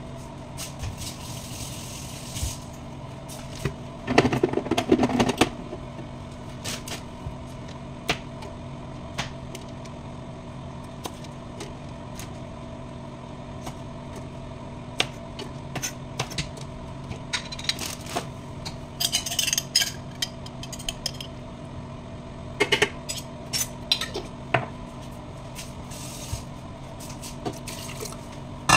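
Kitchen preparation sounds over a steady hum: scattered clinks and knocks of dishes and a plastic blender jar as ingredients are put into it, the loudest clatter about four seconds in, and a short rustle about two-thirds of the way through.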